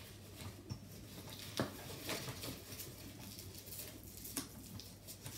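Faint rustling of the Bugaboo Donkey 3 bassinet fabric and a few light plastic clicks as hands tuck the textile and its Velcro straps around the frame's plastic pins.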